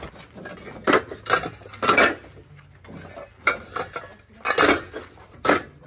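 Hollow ceramic bricks clinking and knocking against each other as they are handed down from a truck bed and stacked: a series of sharp, irregular clinks, roughly one every half second to a second.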